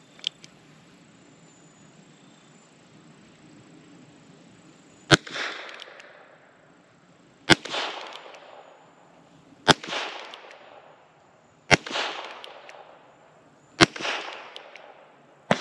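A Heritage Rough Rider .22 LR single-action revolver fires six CCI Mini Mag rounds, one shot about every two seconds starting about five seconds in, each followed by a short echo. In this revolver the Mini Mags sound weak at some times and strong at others. A sharp click about a quarter second in.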